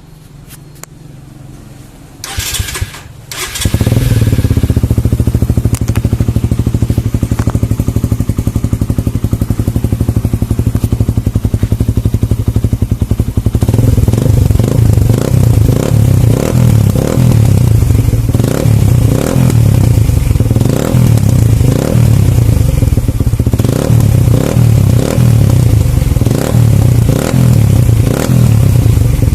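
Suzuki Raider 150 motorcycle engine, single-cylinder four-stroke, breathing through an Apido Power Pipe aftermarket exhaust with its silencer insert fitted. It starts up about three seconds in, idles steadily, then from about halfway on is revved in repeated short throttle blips.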